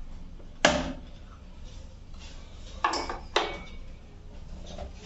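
Three sharp knocks and clicks as a screwdriver and wires are handled at a plastic MCB distribution box: the loudest under a second in, then two more about half a second apart around three seconds in.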